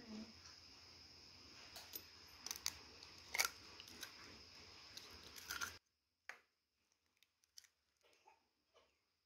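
Eggs being cracked into a ceramic bowl: a string of sharp clicks and cracks of shell, the loudest about three and a half seconds in, over a steady hiss that cuts off suddenly near six seconds, after which fainter clicks follow.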